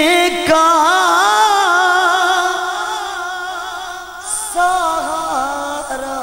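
A man singing a naat, a devotional Islamic song, into a microphone. He holds one long wavering, ornamented note for about three and a half seconds, then after a brief break sings a shorter phrase.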